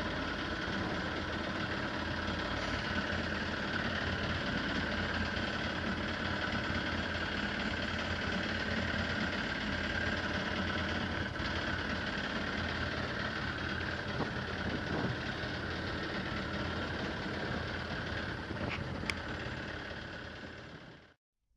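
A fishing boat's engine running steadily at idle, a constant hum with a noisy wash underneath. It fades out and cuts off shortly before the end.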